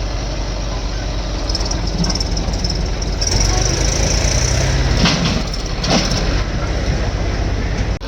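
Diesel engine of a backhoe loader running steadily under load while it loads soil, with two sharp knocks about five and six seconds in.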